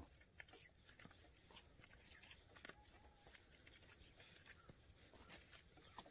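Near silence with faint, scattered small ticks and rustles from gloved hands working the accelerator cable on a power tiller.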